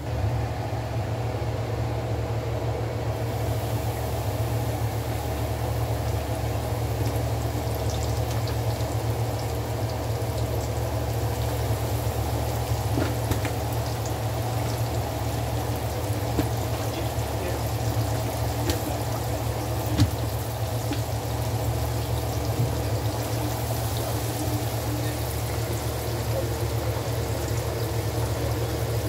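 Coconut-and-flour-coated pork chops deep-frying in a pan of hot oil: steady sizzling and bubbling with scattered small pops. The sizzle turns brighter and hissier about three seconds in. A low steady hum runs underneath.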